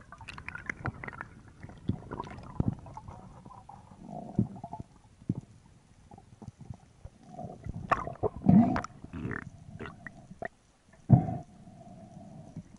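Underwater sound picked up through a camera housing during spearfishing: irregular muffled knocks, clicks and rumbles from the diver's speargun and gear, with louder thumps about eight and eleven seconds in and a short steady hum near the end.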